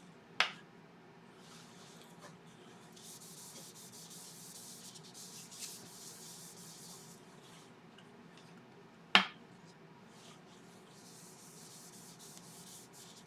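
Paper towel wiping citrus burnishing oil onto a sanded yew wood bowl, a soft intermittent rubbing. Two sharp clicks, about half a second in and about nine seconds in, stand out above it.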